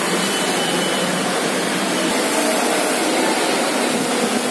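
Steady rushing noise of railway station ambience, with no single distinct event.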